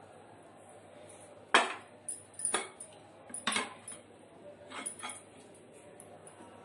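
Metal spoon clinking and knocking against a pressure cooker and a plate as cooked chicken pieces are lifted out, about six sharp clinks with the loudest about one and a half seconds in.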